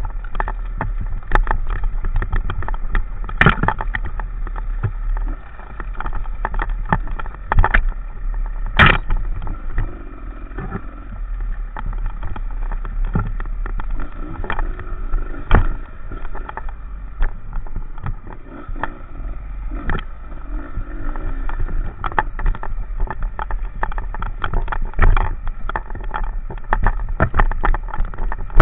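Enduro motorcycle running on an uphill off-road climb, a steady engine drone broken by many sharp knocks and thumps.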